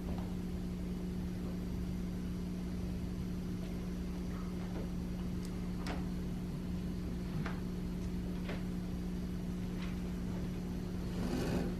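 Steady low electrical hum with a few faint, short clicks or rustles scattered through it.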